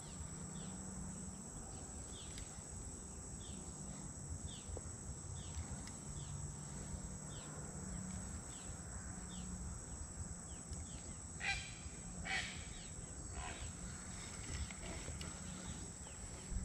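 Faint outdoor wildlife sounds: a bird repeats short downward-sliding chirps about once a second over a steady high-pitched insect drone. Two louder, harsher calls come about two-thirds of the way through.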